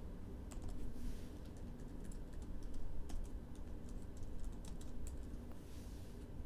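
Typing on a computer keyboard: quick, irregular key clicks for several seconds, trailing off near the end.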